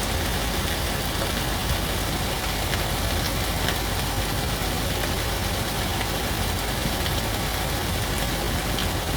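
Minced beef, pepper and onion frying in a non-stick pan: a steady sizzle with a few faint crackles and a low hum underneath.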